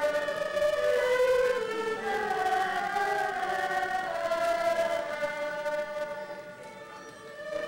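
An ensemble of erhu, Chinese two-stringed bowed fiddles, playing a slow melody together with held notes and sliding pitches. The playing softens about six seconds in and swells back near the end.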